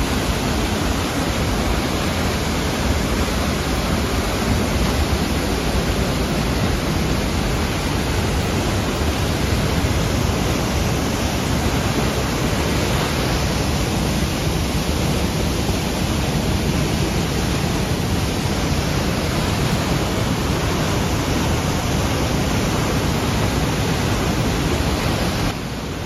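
Aira Force waterfall rushing steadily, a continuous even roar of heavy water pouring into the gorge, its flow high and the current strong.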